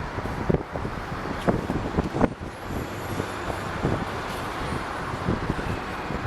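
Jet aircraft engine noise as a steady rumbling roar with a faint high whine in the middle, and wind gusts knocking on the microphone.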